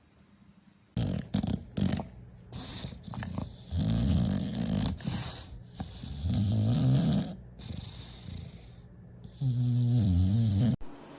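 A dog snoring, with long rasping breaths about every two and a half to three seconds after a few shorter snorts.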